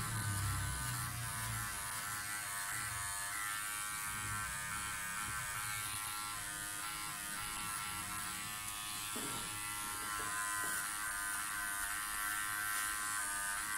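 Powertec TR-1700 electric hair clipper buzzing steadily as it cuts short hair at the nape, its blade lever pulled to the half setting. A few light taps come about nine to eleven seconds in.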